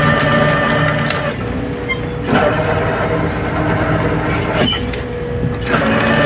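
Fishing boat's deck machinery running steadily and loudly while a winch works the brailer basket loading fish from the purse seine. It has a whining tone that shifts pitch a few times and three short clanks.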